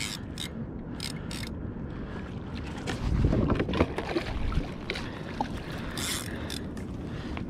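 Clicks and knocks of fishing rod, reel and gaff handling on a plastic kayak while a hooked yellowfin tuna splashes alongside at the surface; a louder stretch of rushing water and handling noise comes about three seconds in.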